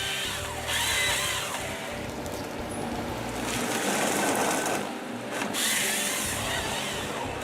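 Forestry harvester at work: a Sampo Rosenlew harvester's engine and hydraulics running while its Kesla harvester head's saw cuts timber, with louder stretches of cutting noise about a second in, halfway through and near the end.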